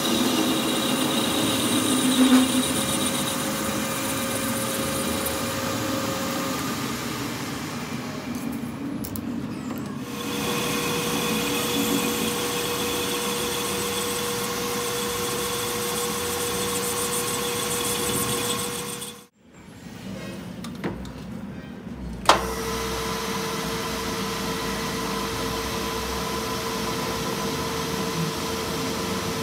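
Metal lathe running, its tool cutting a steel truck part, with a steady tone over the machine noise. The sound drops out briefly about two-thirds of the way through and comes back with a sharp click, after which a tailstock drill bores into the spinning part.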